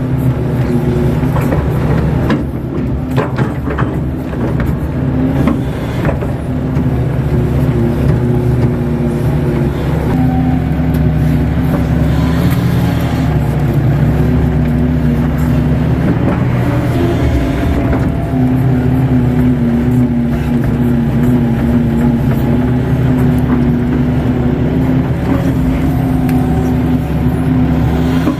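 Kato HD512 crawler excavator's diesel engine running steadily under digging load, heard from inside the operator's cab, with a faint wavering whine from the hydraulics as the bucket scoops and lifts wet mud. A few knocks about two to four seconds in.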